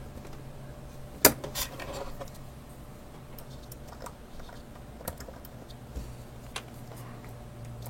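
Scattered small clicks and light metallic rattles from a Master Lock padlock being handled, the loudest click about a second in, over a faint steady low hum.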